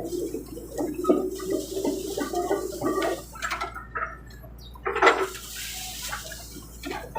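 Excavator working through brush and timber, with a steady low drone under irregular crackling and snapping of wood, and a louder crunch about five seconds in.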